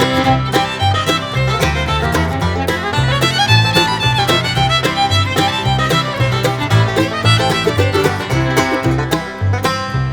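Background music: an upbeat bluegrass tune with fiddle and banjo over a steady bass beat.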